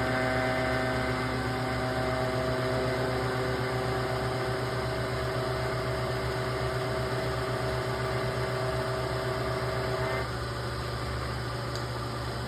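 Metalworking machine cutting a radius into the edge of 1/4-inch aluminium angle under a slow, even feed, with a steady motor hum and a steady cutting whine. The whine stops about ten seconds in as the cut finishes, while the motor keeps humming.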